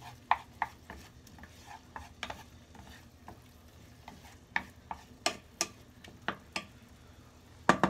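Wooden spatula knocking and scraping against a non-stick frying pan while stirring mushrooms in a butter sauce: irregular sharp taps, about two a second, over a faint sizzle, with the loudest double knock near the end.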